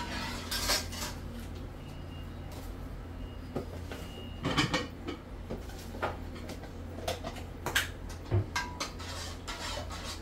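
A spoon stirring and clinking against a stainless steel cooking pot, with scattered sharp knocks of kitchenware. The loudest clatter comes about four and a half seconds in, and a few more sharp clinks come near the end.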